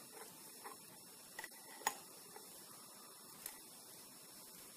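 A few faint ticks of metal tweezers tapping against the sample dish while picking out tiny fossil fragments, the clearest about two seconds in, over quiet room tone.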